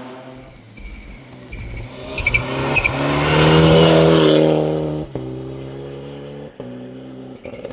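Rally car passing at speed. The engine grows loud, peaks about three to four seconds in, then pulls away. A few sharp cracks come as it recedes.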